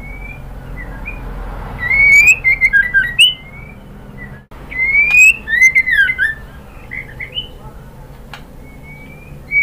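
White-rumped shama (murai batu) singing: two runs of loud, clear whistled notes that glide up and down, about two seconds in and again about five seconds in, then softer notes and a single rising whistle near the end.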